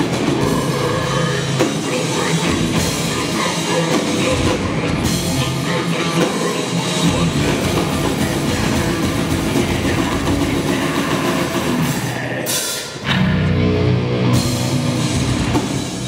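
Heavy rock band playing live, with distorted electric guitars, bass and a drum kit. Near the end the music drops away for a moment, then the band comes back in louder.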